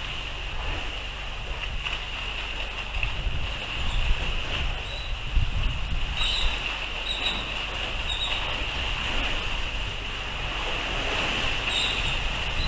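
Wind buffeting the microphone over a steady wash of sea, with a constant high-pitched hiss and a few short high chirps about six seconds in and again near the end.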